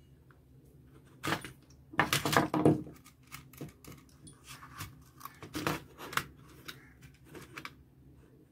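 Hands twisting and joining stripped red copper wire on a switchboard: rustling and light clicks, with a louder burst of rustling about two seconds in and scattered small clicks after.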